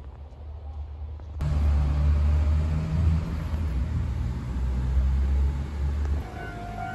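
Low rumble of a moving vehicle heard from inside, cutting in abruptly about a second and a half in and dropping away about six seconds in. Near the end a steady high tone sets in.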